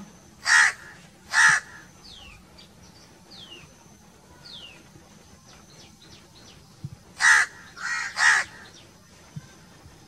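House crow cawing: two harsh caws about a second apart near the start, then a quick run of three more caws about seven to eight and a half seconds in.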